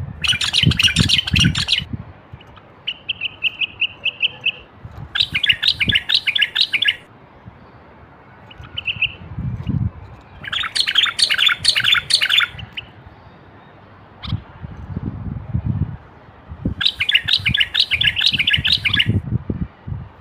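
Common bulbul song: four bursts of rapid chattering, whistled phrases, each about two seconds long and spaced a few seconds apart, with a shorter steady whistled note after the first. Low knocks and rumbles come underneath at times.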